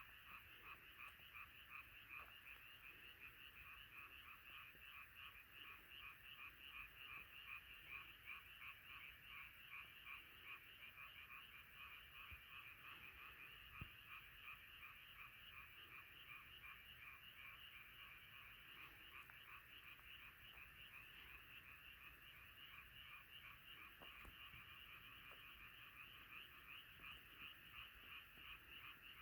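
Faint, dense chorus of many frogs croaking together, rapid pulsed calls overlapping continuously without a break.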